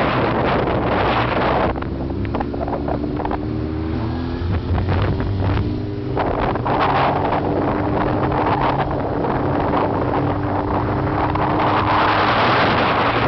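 Sport motorcycle engine held at a steady throttle through a slow wheelie, its pitch shifting a little between about two and five seconds in. Heavy wind noise on the microphone is strongest at the start and near the end.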